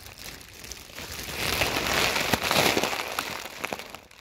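Close rustling and crinkling with scattered small clicks, as something is handled right against the microphone. It grows louder about a second in and fades near the end.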